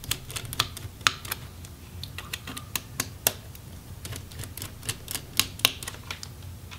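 Small, sharp, irregular clicks and ticks of a precision Phillips screwdriver working tiny screws out of a laptop motherboard, several a second. A faint low hum runs underneath.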